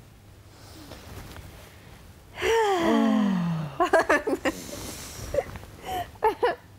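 A woman's voice making wordless sounds: one long breathy sound falling in pitch for about a second and a half, then several short quick vocal sounds.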